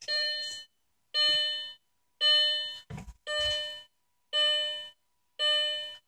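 Audi S4's instrument-cluster warning chime dinging six times, about once a second, each ding fading quickly, as the key goes in and the ignition comes on. A soft knock about halfway through.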